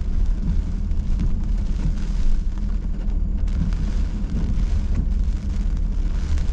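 Wind-driven hurricane rain beating on a moving car, over the car's steady low road and wind rumble, heard from inside the cabin.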